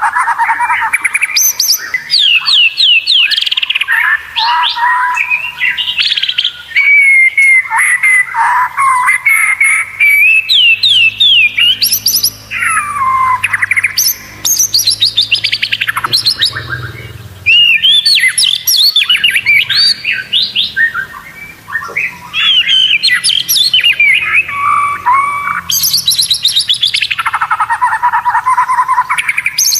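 White-rumped shama singing a continuous, varied song of fast trills, rising and falling whistles and rapid runs of repeated notes, with only brief pauses.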